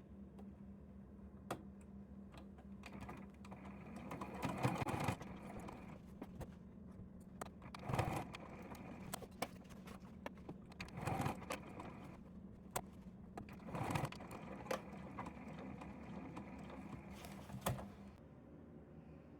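Electric sewing machine stitching in stretches, with a steady motor hum and irregular clicks, and louder rustles as the fabric is handled. The hum stops near the end.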